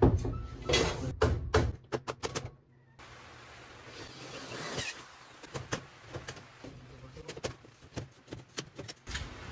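Metal wall-angle strip knocking and clattering against a plywood wall as it is fitted: a quick run of sharp knocks in the first two seconds, then a faint hiss with scattered light clicks.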